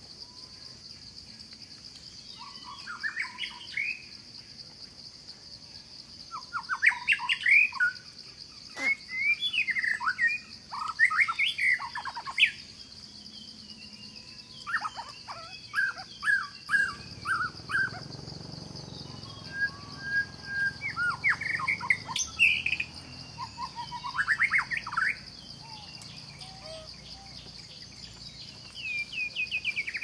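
Repeated bursts of bird chirps and short sweeping calls over a steady high-pitched insect drone.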